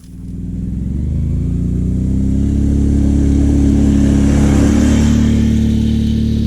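Can-Am 570 ATV engine running steadily at low speed, its pitch creeping slightly upward over the first couple of seconds.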